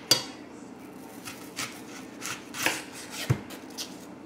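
Knife cutting an onion into strips on a cutting board: uneven single knocks of the blade against the board, the loudest just after the start and about two-thirds through, with one duller thump near the end.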